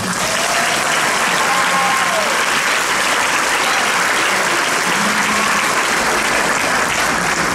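Audience applauding steadily, with a couple of short cheers in the first two seconds.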